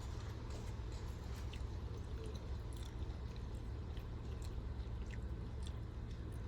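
A person chewing fried food: small, irregular crunchy clicks over a steady low rumble inside a car.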